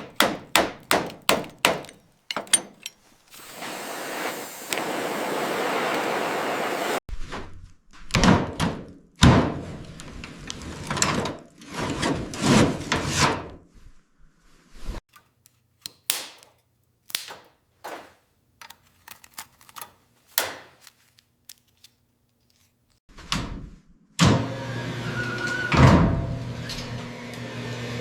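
A run of workshop sounds: a quick series of sharp knocks, about four seconds of steady hissing, more knocks and scraping strokes, then a brief pause before a machine starts running with a steady hum near the end.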